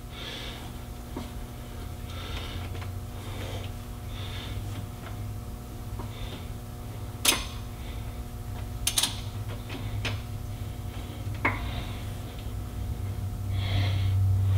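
A socket on a long extension clinking and knocking against metal as it is worked onto the top starter bolt of a truck. There are a handful of sharp clicks in the second half, two of them close together, over a steady low hum.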